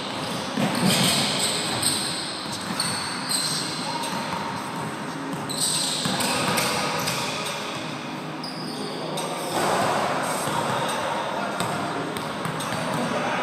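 Basketball bouncing repeatedly on a hardwood gym floor during play, echoing in a large gym.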